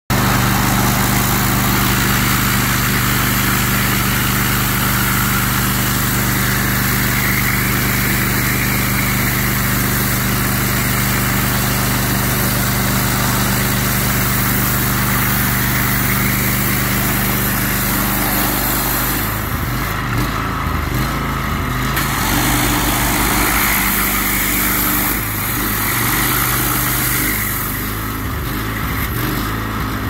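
Engine-driven pressure washer running steadily under the hiss of its turbo-nozzle water jet as it strips old paint from a garage door. Twice, about two-thirds of the way in and again near the end, the spray hiss stops for a couple of seconds and the engine note wavers.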